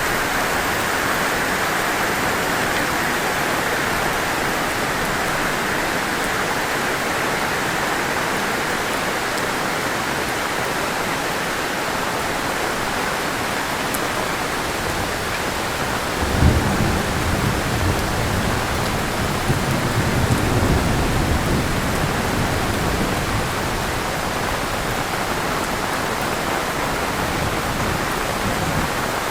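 Heavy rain falling steadily. A little past halfway, a low rumble of thunder comes in and rolls on for about six seconds.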